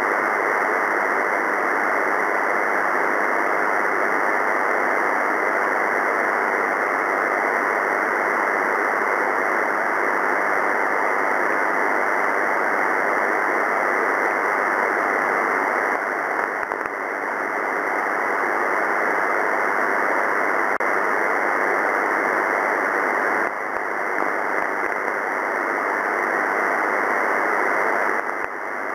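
Steady hiss of a 2 m band (144 MHz) radio receiver in upper-sideband mode, with no signal standing out above the noise: the aircraft-scatter reflection is too weak to decode. The noise dips briefly a few times.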